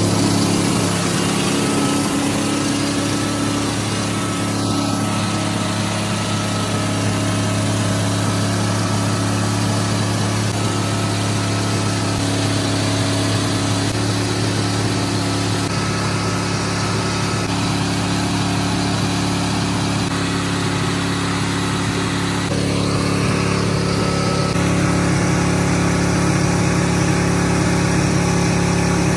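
A 1979 Ford F-250's 351M V8 runs on its own at a steady, held speed. It is firing on only seven cylinders because one spark plug wire is burnt out, and it is being left running to blow itself up. The engine note shifts slightly about three-quarters of the way through.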